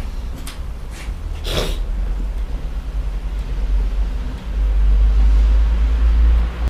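Low rumble of street traffic coming down through the open street door, growing louder for about two seconds near the end, with a short hiss about a second and a half in.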